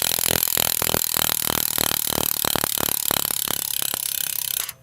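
BMX cassette rear hub ratcheting loudly as the rear wheel spins freely: a fast, dense buzz of pawl clicks that cuts off suddenly near the end.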